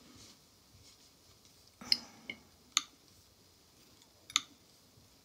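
A few short, sharp clicks in a quiet room, the first about two seconds in and the last near the end.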